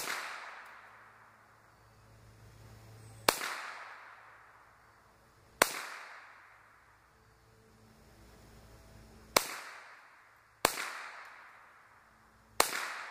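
GSG 522 .22 LR semi-automatic rifle firing six single aimed shots, spaced about one to four seconds apart, each sharp crack trailing off in a short fading echo.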